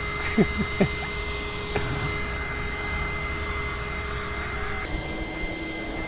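Mini USB vacuum cleaner's small fan motor running steadily with a thin, high whine as it sucks grass clippings and paper bits off a laptop keyboard, with a few faint ticks in the first two seconds. Near the end its pitch steps down a little and the sound turns hissier.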